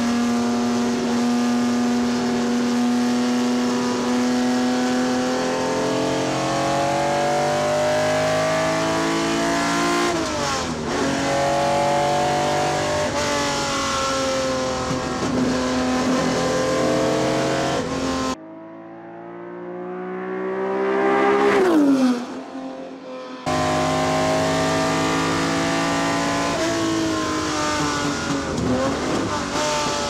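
Ferrari 250 GTO's V12 engine heard from inside the cabin, pulling hard up through the gears with brief breaks at each upshift. About two-thirds through, the car is briefly heard from outside: it swells and then drops sharply in pitch as it passes by, before the in-car engine sound returns.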